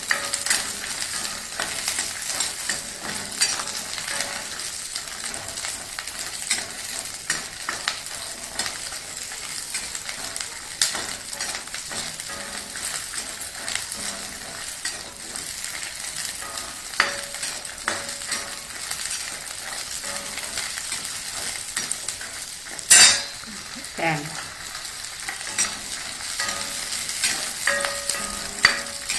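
Shallots, garlic and dried red chillies sizzling as they sauté in sesame oil in a black kadai. A steel ladle stirs them, scraping and clicking against the pan now and then. A single sharp knock about 23 seconds in.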